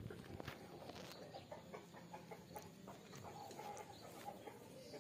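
Chickens clucking in short, repeated calls, faint, with soft wet clicks of a cat licking its paw close by.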